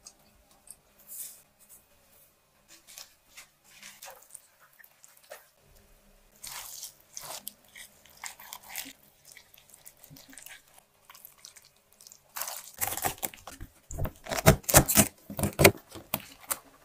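Wet crunching and squishing of a gloved hand rubbing chili paste into salted napa cabbage leaves for kimchi, in scattered bursts. A denser run of loud crackling and rustling comes in the last few seconds.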